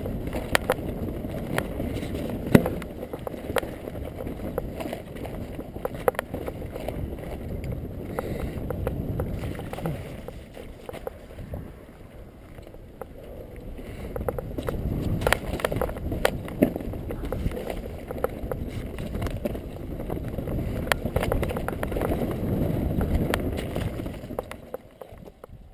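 Mountain bike rolling fast over rocky, stony singletrack: a steady low rumble of tyres on rock and gravel, with frequent sharp clicks and knocks as the bike rattles over stones. It eases off for a few seconds midway, picks up again, and fades out at the end.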